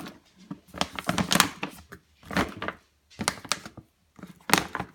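Plastic dog food bag crinkling and crackling as it is handled and turned, in several short spells with brief pauses between.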